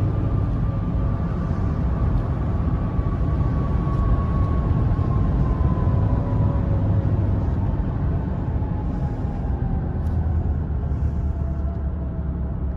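Ford XLT pickup heard from inside the cab at high speed: a steady low rumble of road and wind noise, with a faint whine that falls slowly in pitch as the truck slows down from about 180 km/h.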